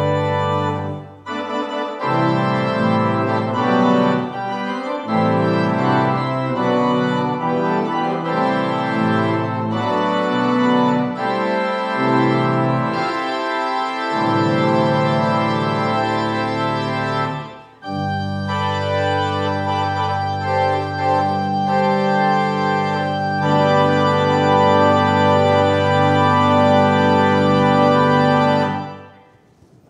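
Organ playing slow, sustained chords, with a short break a little past halfway, ending just before the close.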